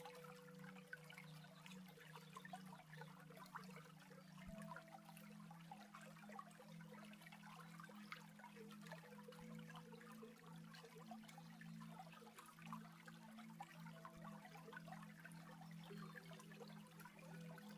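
Faint trickling water of a stream, with soft low held tones underneath that shift every few seconds.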